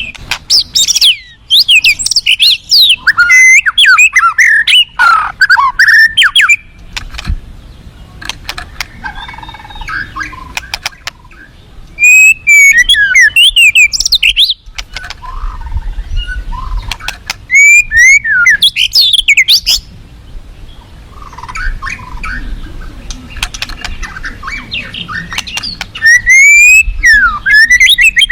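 White-rumped shama (murai batu) singing loud, varied phrases of rapid whistled sweeps and trills in four bursts of a few seconds each. Underneath is a low, steady rushing of river water.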